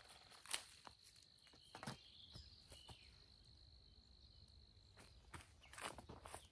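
Faint, steady high-pitched insect trill that stops about five seconds in, with a few light clicks and knocks scattered through it.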